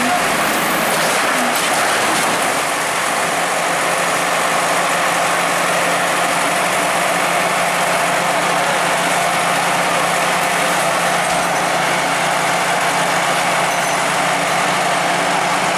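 Bulldozer's diesel engine running steadily with a constant low hum, under a dense, even rumble of machine and outdoor noise.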